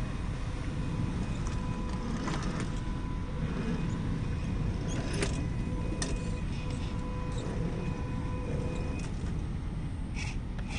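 Electric whine of a 1/10-scale Axial SCX10 II rock crawler's 550 brushed motor at low, steady throttle, holding a thin steady pitch that drops out and returns as it crawls over rock. A few sharp knocks of the tyres and chassis on stone sit over a constant low rumble.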